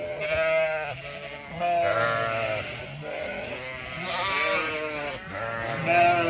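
Zwartbles sheep bleating over and over, several wavering calls of half a second to a second each, some overlapping from different animals.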